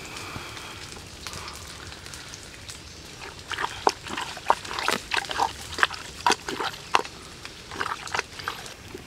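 Wet squelching and squishing of raw pig intestine squeezed and kneaded by hand in a wooden mortar: a quick, irregular run of short squishes that starts about three and a half seconds in and lasts some five seconds.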